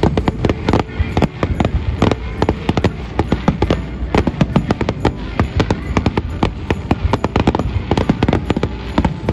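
Aerial firework shells bursting in quick succession: a dense, unbroken run of bangs and crackles, several a second.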